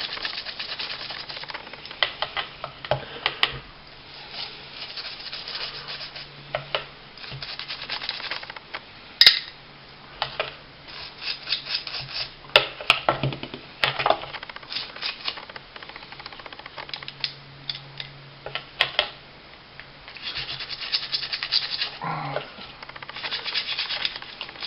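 A small cleaning brush scrubbing the frame rails of a small 1911-style 9mm pistol in quick, irregular scratchy strokes, with a few sharp clicks of the brush or frame against metal, the loudest about nine seconds in.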